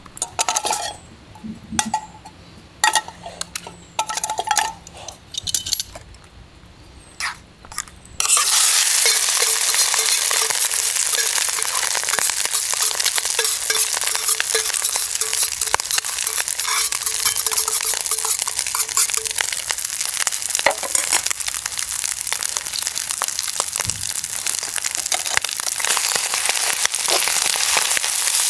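Scattered knocks and clicks of cooking gear being handled, then about eight seconds in food hits a hot frying pan and sizzles loudly, with frequent clinks and scrapes of a utensil stirring it.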